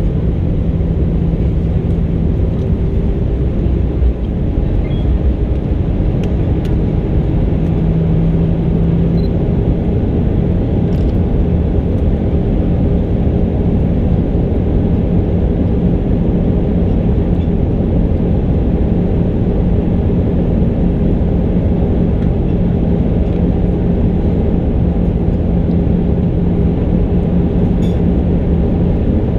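Steady roar of air and engine noise inside an Airbus A319's passenger cabin, with a low engine hum holding one pitch throughout.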